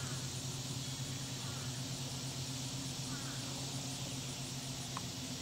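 Steady low background hum with a few faint chirps and a single click about five seconds in.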